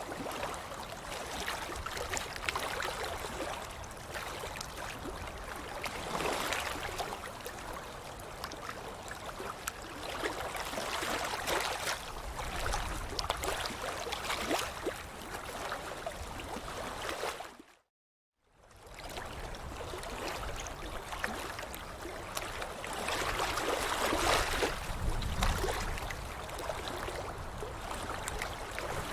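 Water splashing and sloshing without a break, with many small droplet splashes and swells of louder splashing every few seconds. About two-thirds of the way through it fades out to silence for a moment and fades back in.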